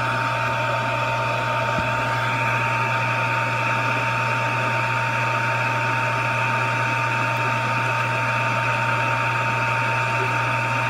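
Hot air rework gun blowing steadily, a constant rush of air with a fan whine, as it heats a surface-mount inductor to desolder it.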